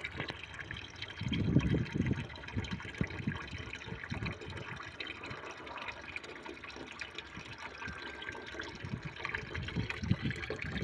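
Water running into a container as it fills for the horses to drink, with a few low knocks and bumps, the loudest about a second and a half in.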